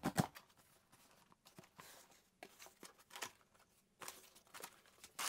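Cardboard shipping box being opened: a tear strip ripped along the box right at the start, then faint scattered rustles and taps of cardboard flaps and packing being handled.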